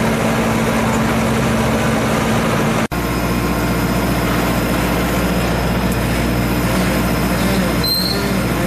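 A motor engine running steadily, with a dense low rumble. The sound cuts out for an instant about three seconds in, then resumes.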